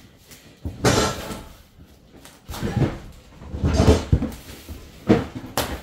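A heavy cardboard box holding a concrete mixer being rocked from corner to corner and set down: several irregular scrapes and bumps of cardboard on the floor.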